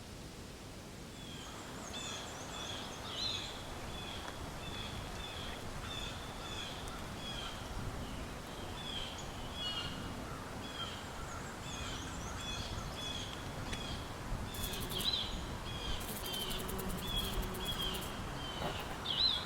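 A bird chirping over and over, short chirps about two a second, over a steady outdoor background hiss; a few brief high rattles come in later on.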